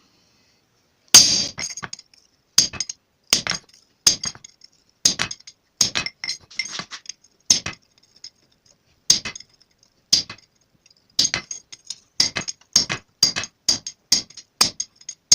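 Hand hammer striking a cold chisel to score a line into cold steel bar stock, each blow a sharp metallic clink with a high ring. The blows are spaced irregularly at first and quicken to about three a second near the end, as the line is refined and cut deeper.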